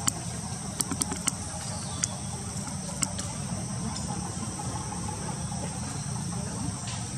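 Steady outdoor ambience: insects buzzing in a constant high band over a low rumble, with a few sharp clicks in the first three seconds.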